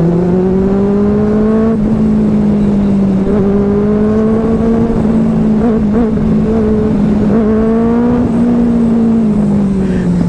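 Benelli 600i inline-four engine pulling steadily in gear. Its pitch rises gradually over the first couple of seconds, holds with small wobbles, then drops near the end as the throttle eases.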